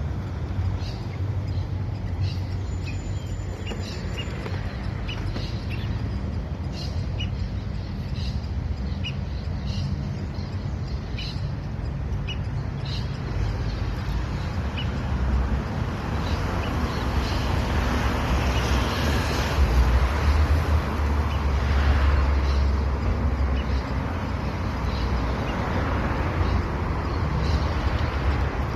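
Masked water-tyrant giving short, sharp chirps about once a second, thinning out after the first half, over a steady low rumble that swells briefly past the middle.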